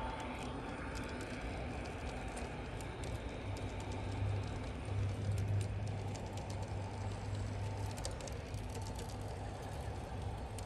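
G scale model freight train of double-stack container cars rolling past on track: a steady low hum that swells a little in the middle, with light irregular clicking of the wheels on the rails.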